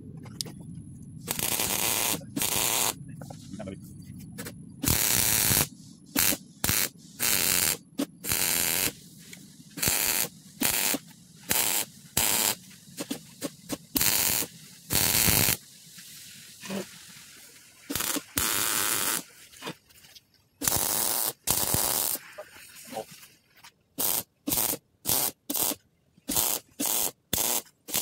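Wire-feed welder arc crackling in a long series of separate bursts as the trigger is pulled and released over and over, some bursts running a second or more. Near the end the bursts come shorter and quicker. The bead is being laid on the steel shell of a catalytic converter to seal an exhaust leak.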